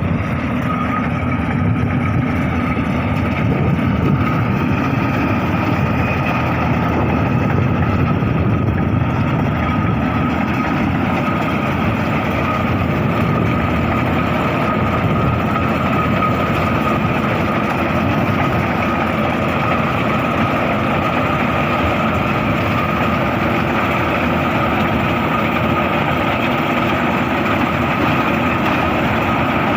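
Firman FCH1207 rice combine harvester running steadily under its engine, with a steady whine over the machine noise.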